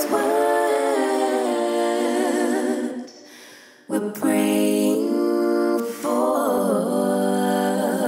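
Intro music of wordless a cappella vocals humming a melody. It breaks off briefly about three seconds in, then resumes.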